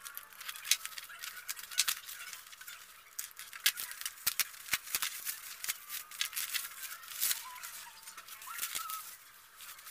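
Plastic bubble wrap crinkling and crackling as it is handled and pulled open by hand, in many sharp irregular crackles.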